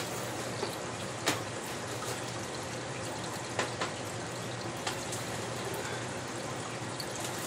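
Steady rushing noise like running water, with a few light clicks.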